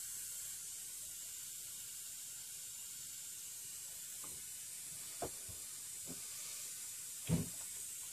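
Steady faint hiss with a few light taps and one louder knock a little past seven seconds in, from a soldering iron and wire being handled on a workbench.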